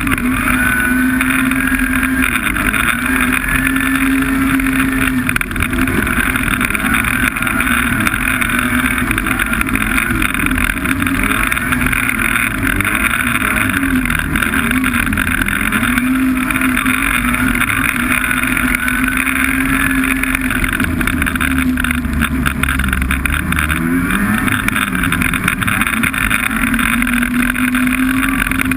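Snowmobile engine running steadily under way, its pitch wavering up and down with the throttle and dipping briefly a little past three quarters of the way through.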